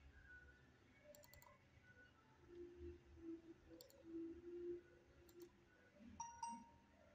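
Faint computer mouse and keyboard clicks over near-silent room tone: a quick run of clicks about a second in, then single clicks and a pair near the end.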